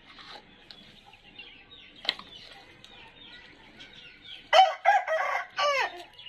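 Aseel rooster crowing once, a loud call in four quick parts near the end, the last part drawn out and falling in pitch. Faint high chirping runs underneath, with a single sharp click about two seconds in.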